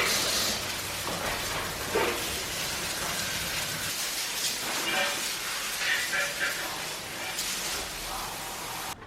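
Garden hose spraying water, a steady hiss of spray with irregular spatter, cutting off abruptly near the end.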